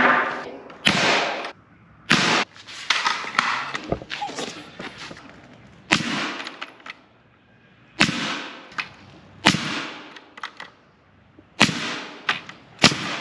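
Pneumatic nail gun driving nails into wooden framing: a series of sharp shots, irregularly spaced about one to two seconds apart.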